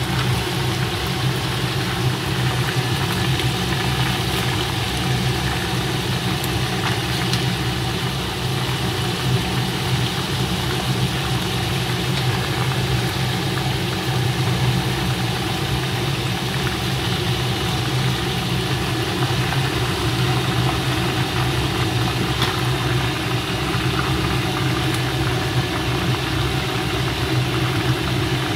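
Tilapia pieces shallow-frying in hot oil in a stainless frying pan: a steady sizzle with a few small pops, over a low steady hum.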